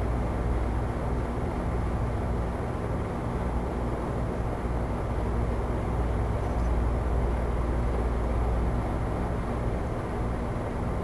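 Steady room noise: a constant low rumble with a faint hum and no distinct events.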